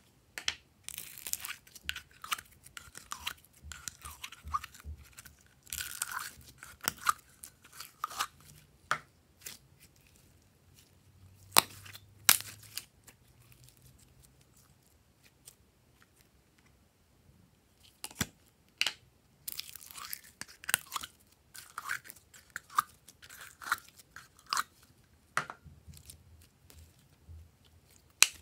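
Slime being handled, squished and stretched by hand: clusters of sticky, wet crackles and sharp clicks, with a quieter lull around the middle.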